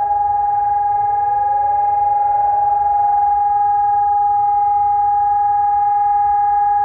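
Helin SONUS warning sirens sounding together: one loud siren holds a single steady tone while fainter sirens glide upward in pitch beneath it.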